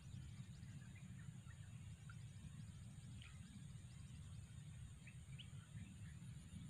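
Faint open-air ambience: a steady low rumble with a few short, scattered bird chirps.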